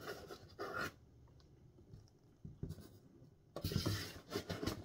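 Cardboard box being handled: scraping and rubbing of cardboard, a quieter stretch in the middle with a single click, then louder scraping and a few low bumps near the end.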